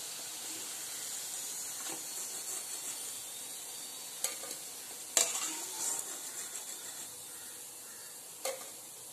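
Gulab jamun dough balls deep-frying in hot oil, a steady sizzle that slowly fades. A metal slotted ladle clinks sharply against the kadai three or four times as the fried balls are scooped out, loudest about five seconds in.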